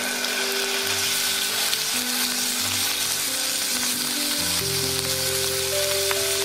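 Seasoned beef oyster blade pieces sizzling steadily as they fry in hot olive oil in a pan, stirred with silicone chopsticks. Light background music plays underneath.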